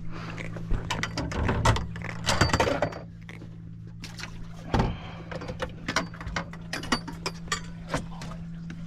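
Scattered knocks, clicks and rattles of fishing gear and a fish being handled on a boat, over a steady low hum.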